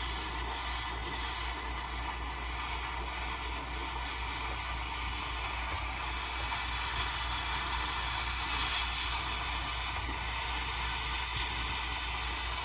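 Jeweller's soldering torch flame hissing steadily while solder is flowed into the seams of a sheet-silver box.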